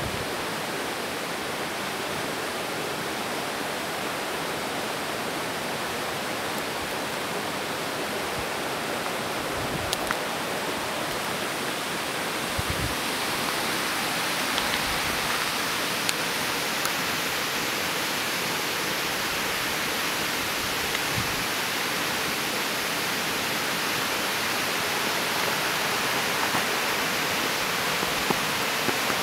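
Steady, even rushing hiss of background noise, with a faint high steady tone joining about halfway through and a few faint low knocks.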